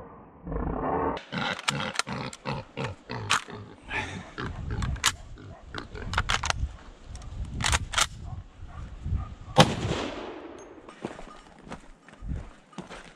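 Hunting dogs barking and baying close by, broken by several sharp gunshots; the loudest shot comes about ten seconds in and is followed by a brief echo.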